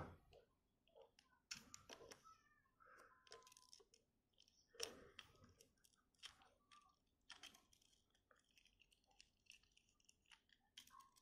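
Faint, scattered clicks and light scrapes of small plastic parts as an action figure's hands and legs are pressed into place on a toy mono-wheel motorcycle.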